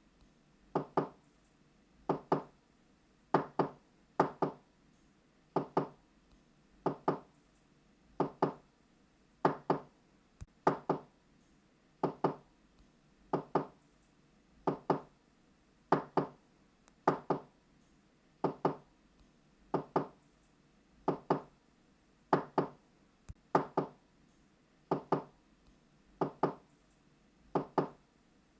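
Knocking on a door: knuckle raps in quick pairs (knock-knock), repeated about once a second over and over.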